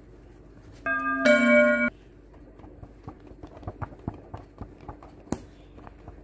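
A loud two-note chime, a lower tone then a slightly lower, brighter one, rings for about a second near the start, followed by a run of light, irregular clicks over a faint steady hum.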